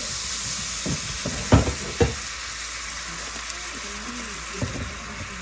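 Sliced onions sizzling in a small frying pan as honey is poured over them, a steady hiss. Two sharp knocks come about half a second apart, between one and two seconds in.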